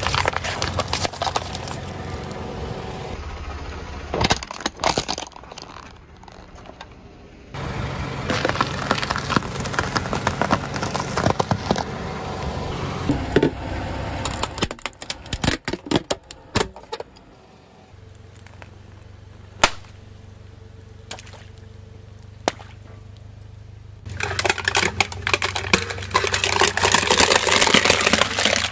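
A car tyre rolling over and crushing things. First, glass light bulbs in cardboard boxes crack and pop. Later, aluminium drink cans crunch and crumple. A car engine hums low underneath.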